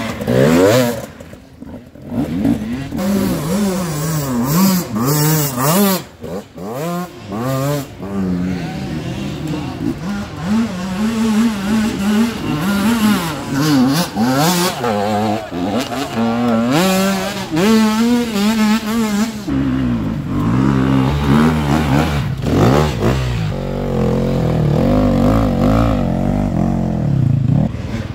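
Off-road dirt bike engines revving hard on a steep hill climb, the pitch rising and falling over and over as the riders work the throttle; about two-thirds of the way through, a deeper, steadier engine note joins in.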